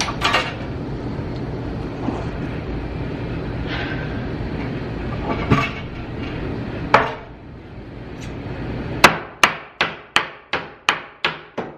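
Hammer striking a wooden wall plank to knock its top loose. There are a few single blows at first, then a quick run of about nine sharp strikes, roughly three a second, near the end. A steady low background noise fades out partway through.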